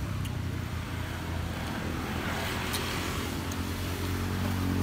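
A motor vehicle's engine running close by with a steady low hum, its pitch rising near the end as it revs up. A few light clicks sound over it.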